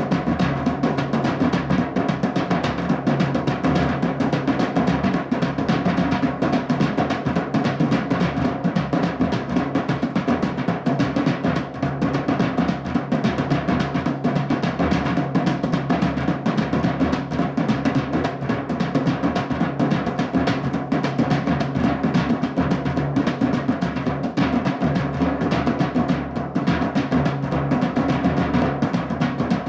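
Drumming music: a dense, unbroken run of quick drum strokes, heaviest in deep low tones.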